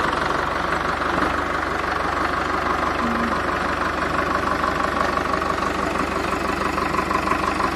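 Farmtrac 6055 T20 Powermaxx tractor's diesel engine running steadily at a low, even speed.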